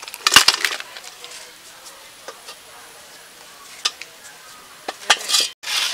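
Boiled eggs and water tipped out of a metal cooking pot into a plastic colander: a splash and a quick clatter of eggs knocking together about half a second in, then a few single knocks and a short splashy burst near the end.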